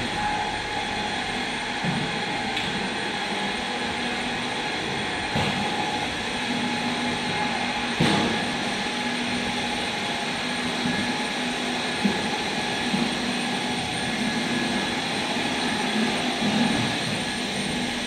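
Steady industrial hum and hiss of a factory hall, with a few faint steady tones running through it and occasional short knocks, the sharpest about eight seconds in.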